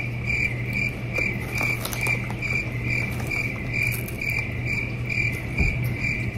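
A cricket chirping in an even rhythm, about two and a half chirps a second, over a low steady hum.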